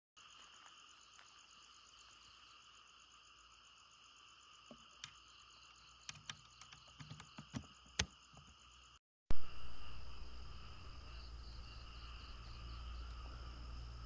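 Steady night-time chorus of insects and frogs, a high pulsing trill. Scattered clicks and knocks come around the middle. A little past halfway the sound cuts out for a moment and comes back with a sharp thump, the loudest thing here, and a low hum under the chorus.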